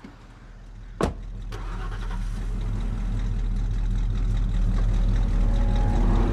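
Car engine starting with a sharp click about a second in, then a low, steady rumble that grows gradually louder.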